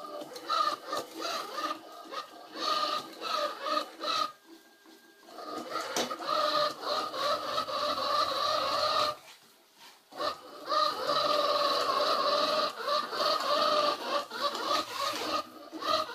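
XRobot 510D robot vacuum cleaner running: a wavering motor whine over a hiss of suction and brushes. It drops out twice for about a second.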